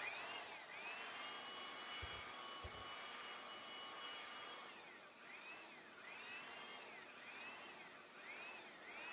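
Makita 9401 belt sander running on the outside curve of a hardwood workpiece, giving a steady high whine over the rasp of the belt. In the second half its pitch dips and recovers about once every three quarters of a second as it is pushed back and forth over the curve and loaded with each stroke.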